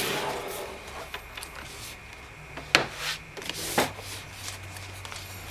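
Cardboard laptop packaging handled and shifted on a wooden desk: rustling and rubbing of the box, with small clicks. Two sharp knocks come near the middle, about a second apart, and are the loudest sounds.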